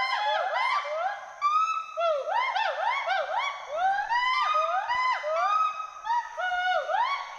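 Two western hoolock gibbons calling together: a fast, continuous series of rising-and-falling whoops, about three a second, with two voices overlapping at different pitches.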